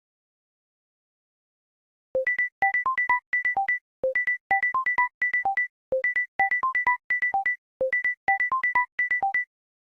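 A Samsung Galaxy S10 ringtone, starting about two seconds in: a short electronic melody of quick plucked notes, a low note followed by higher ones, with a high note repeating between them. The phrase plays four times, about every two seconds.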